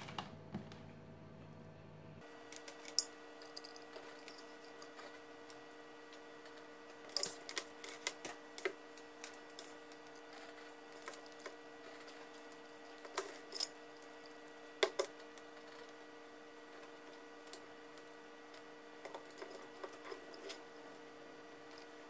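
Scattered light clicks and taps of wiring being handled: harness leads and connectors fitted onto a pair of horn terminals and laid against a battery, in small clusters over a faint steady hum.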